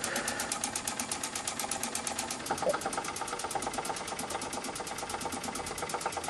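Doll toy horizontal steam engine running fast on compressed air, its single cylinder exhausting in a rapid, even beat of puffs and clicks. The engine is running smoothly.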